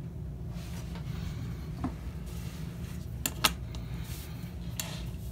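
A few light clicks and taps as a small circuit board and LED display module are handled and set down on a plastic cutting mat, the sharpest two close together about three seconds in. A steady low hum runs underneath.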